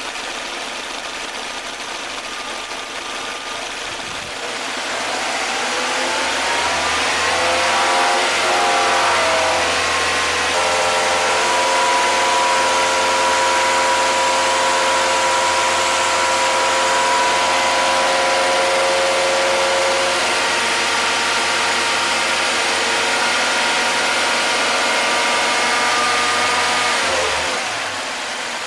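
Nissan four-cylinder engine at operating temperature being revved by hand: about 4 s in it climbs from idle, holds a steady higher speed for about 20 s, then drops back to idle near the end. The raised revs spin the water pump faster to push trapped air bubbles out of the freshly filled cooling system.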